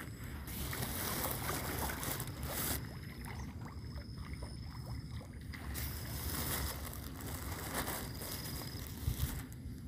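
Wind rumbling on a phone microphone, with rustling handling noise as it is carried along the pond bank.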